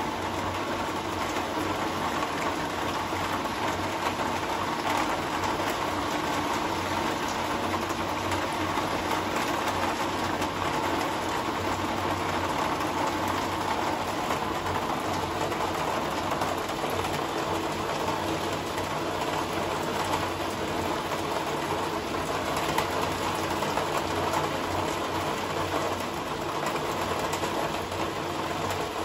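Steady rain falling: an even hiss made up of many fine drop ticks, without let-up.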